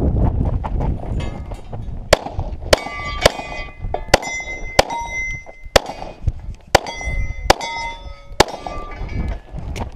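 Pistol shots fired in quick succession at steel targets, about nine over six seconds, each followed by the ringing clang of a struck steel plate.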